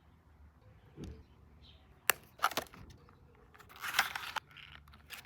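Cosmetics packaging being handled: a soft thump about a second in, sharp clicks around two seconds, then a short burst of paper or plastic rustling about four seconds in.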